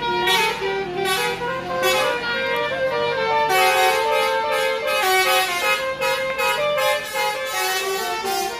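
A bus's basuri musical horn playing a tune: a run of loud horn notes stepping quickly from pitch to pitch.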